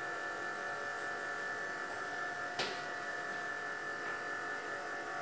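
Steady electrical hum made of several fixed high tones, with a single sharp click about two and a half seconds in.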